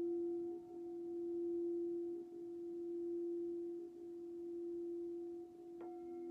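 Crystal singing bowl ringing a steady, nearly pure tone that swells and eases every couple of seconds as it is played. Near the end a bowl is struck, adding a brief brighter ring over the tone.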